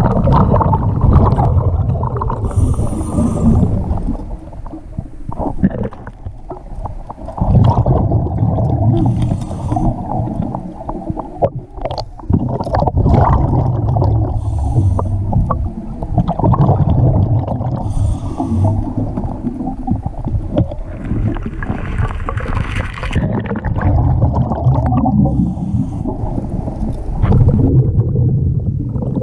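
Underwater sound of a diver breathing: a short hiss recurs every few seconds over a loud rumbling of water and bubbles.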